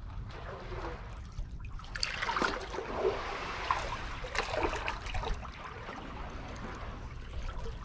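Seawater sloshing and trickling in the gaps between concrete tetrapod blocks, louder and more splashy from about two seconds in until a little after five seconds, over a steady low rumble.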